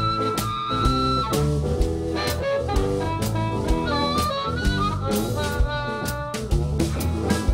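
Live blues band playing: drum kit, electric bass and electric guitar under a harmonica lead. The harmonica holds one long note at the start, then plays shorter phrases over a steady drum beat.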